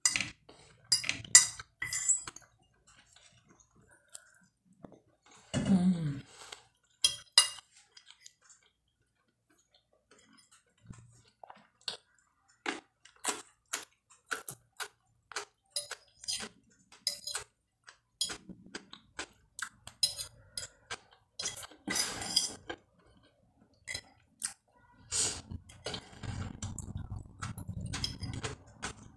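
Metal fork tapping and scraping on a glass plate: many short, sharp clinks through the whole stretch, with chewing between them and more steadily near the end.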